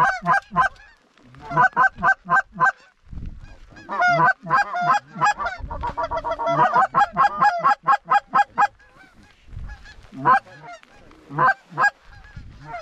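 Canada goose honks and clucks in quick runs, densest through the middle and thinning out to a few single honks near the end.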